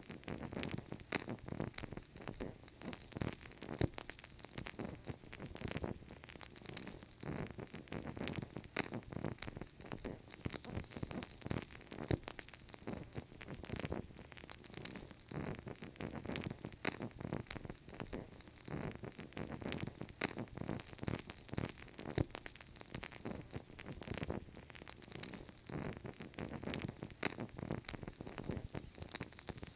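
Wood fire crackling in a fireplace: a dense, irregular stream of small pops and snaps over a soft hiss, with a few sharper snaps standing out now and then.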